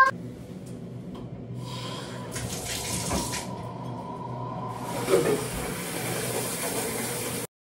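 Shower water running, coming on about a second and a half in and spraying steadily over a faint steady hum. It cuts off suddenly near the end.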